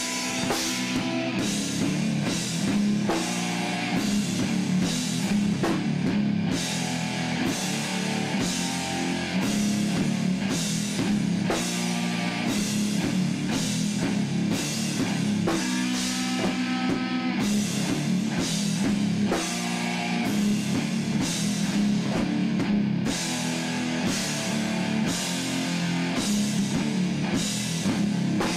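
Rock band playing with electric guitars, bass guitar and drum kit, with a steady beat of drum hits throughout.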